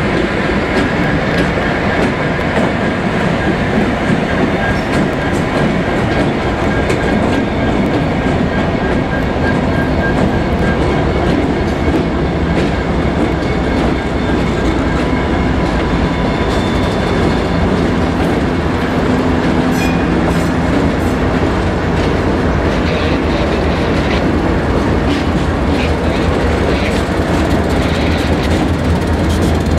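A string of diesel freight locomotives rolling slowly past, their engines running with a steady low drone and their wheels clicking over the rail joints. The engine hum grows stronger near the end as the trailing units come by.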